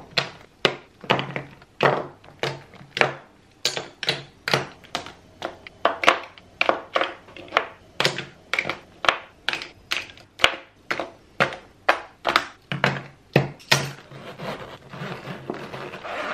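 Makeup products (compacts, tubes, brushes) knocking and clacking as they are dropped one after another into clear plastic zip pouches and set on the table, about two or three knocks a second and very loud. Near the end the knocks give way to a softer rustle.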